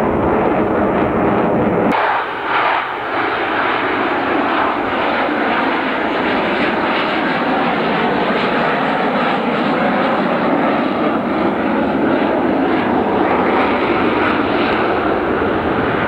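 Loud, steady jet noise from Blue Angels F/A-18 Hornets' twin turbofans as the jets fly overhead. About two seconds in the sound changes abruptly and the deep rumble drops away.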